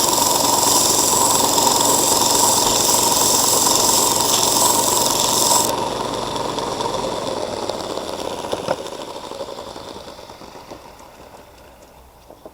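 Electric belt sander running with a steel lopper blade pressed to the belt, a harsh grinding hiss over the motor's hum for about six seconds. The blade then comes off and the motor hum fades away as the sander runs down.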